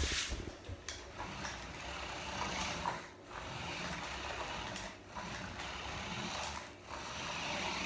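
RC car's electric motor and drivetrain whirring as it drives, in several runs of a second or two separated by brief pauses.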